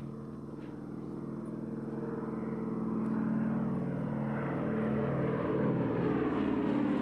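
Vintage piston-engined propeller planes flying overhead: a steady engine drone that grows louder over the first few seconds, then holds.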